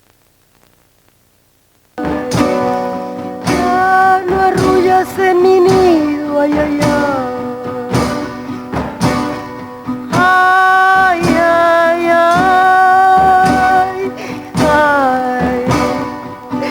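Near silence, then about two seconds in a song begins: a voice singing long held notes that glide between pitches, over a steady rhythm of plucked or strummed strings.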